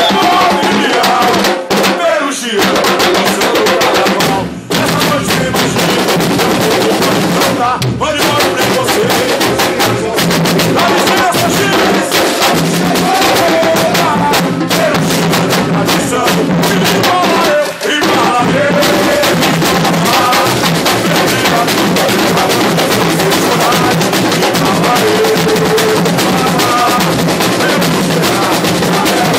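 A samba school bateria playing a fast samba groove: surdo bass drums, snare drums and repiniques drumming together, with a few brief dips in the volume.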